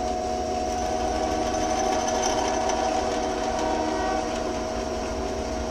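Drill press running steadily with a 1/8-inch bit drilling a pilot hole into a cast iron hand wheel: an even motor hum with a constant tone over it.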